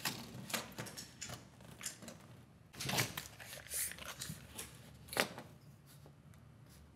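Scattered light clicks, taps and scrapes of a tape measure and pencil being handled against a plasterboard wall while marking out a measurement. The loudest comes about three seconds in, another just after five seconds.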